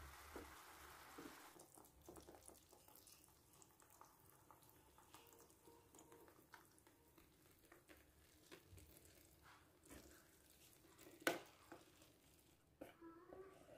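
Near silence: faint room tone with a few light clicks and taps, one sharper click about eleven seconds in.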